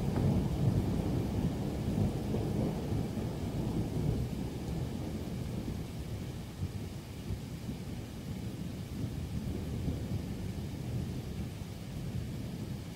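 A roll of thunder rumbling, loudest in the first few seconds and slowly dying away, over the steady hiss of rain.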